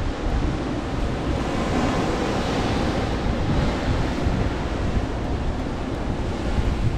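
Wind buffeting the microphone over the steady rush of the open sea, a constant noisy roar with no clear events.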